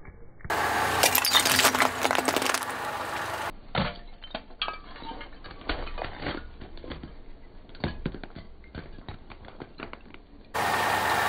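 A car tyre rolls over and crushes brittle objects on asphalt, giving a dense run of crackling and snapping. Then come scattered single cracks and crunches, and another loud burst of crackling cuts in near the end.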